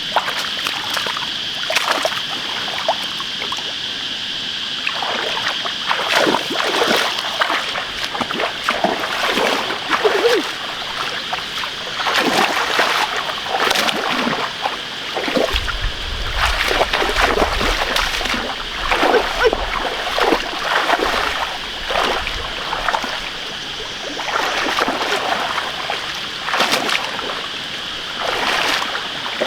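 Repeated irregular splashing in shallow, muddy pond water as fish are caught by hand, over a steady high-pitched hiss. A low rumble joins in about halfway through for several seconds.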